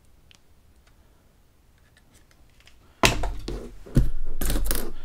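Wooden craft sticks being handled on a desk. After a near-quiet stretch with a few faint ticks, there are short scraping and clattering sounds about three seconds in, a sharp click near four seconds, and another scrape near the end.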